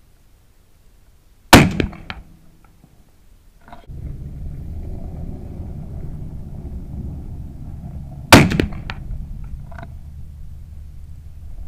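.22-250 rifle fired twice about seven seconds apart, each shot a sharp, very loud crack with a short tail and a few fainter knocks after it. A steady low rumble sets in about four seconds in.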